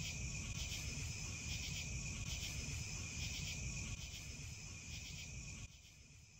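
Crickets chirping in a steady, pulsing chorus, over a low rumble on the microphone. The sound drops off sharply near the end.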